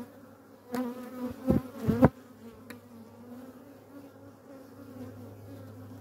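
Honeybees buzzing around an open hive, a steady hum that wavers as they fly past. Two sharp wooden knocks about one and a half and two seconds in as the wooden top cover is set down on the hive body.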